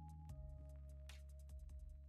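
Faint background music of held notes that shift in pitch, with soft scattered ticks.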